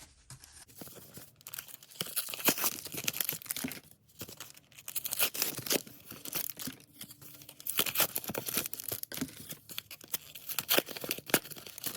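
Packaging of Pokémon TCG booster packs being torn and crinkled by hand as the packs are pulled out of their covers: irregular crackling and ripping, with short pauses about four and six seconds in.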